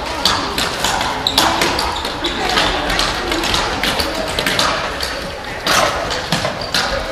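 Sports-hall ambience of children's voices and calls, broken by a series of sharp taps and knocks from floorball sticks and the plastic ball on the wooden court.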